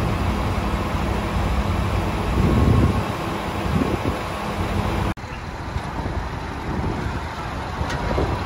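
Liebherr 954 Litronic crawler excavator's diesel engine running under hydraulic load as the machine works its boom and moves on the lowboy trailer, with a louder surge about two and a half seconds in. A sudden brief drop comes about five seconds in, after which a similar steady engine sound goes on.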